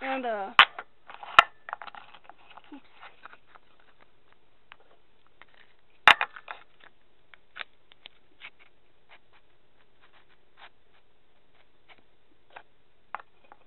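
Painted wooden nesting doll being pulled apart and its pieces set down on a wooden table: scattered knocks and light clicks, the loudest a sharp knock about six seconds in.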